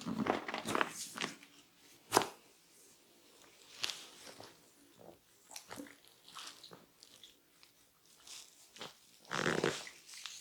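Close-up head massage: hands rubbing and working through hair and scalp in irregular crackly rustles, with one sharp crack about two seconds in.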